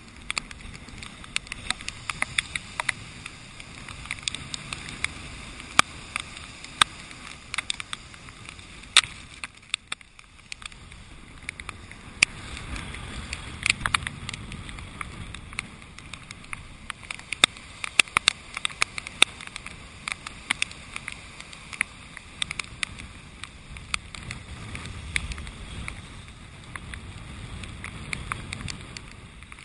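Rain drops ticking irregularly on a GoPro's waterproof housing, sharp clicks several a second at times, over a low rumble of storm surf and wind.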